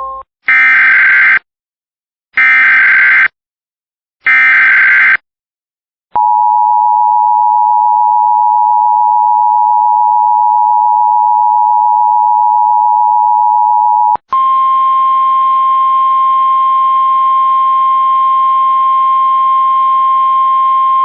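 Emergency Alert System header on NOAA Weather Radio: three short, buzzy SAME data bursts. About six seconds in, the two-tone EAS attention signal holds steady for about eight seconds. It then switches to the single-pitch 1050 Hz weather-radio alert tone, steady with a faint hiss behind it.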